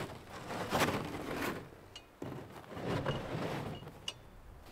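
A hard plastic pull sled being handled on snow: knocks and scrapes as it is lowered and shifted into place, with a few brief high squeaks.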